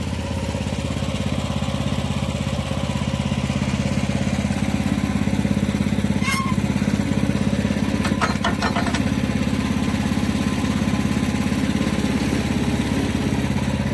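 Wood-Mizer LX50 Super portable sawmill's engine running steadily, with a sharp knock about six seconds in and a quick run of clanks around eight to nine seconds.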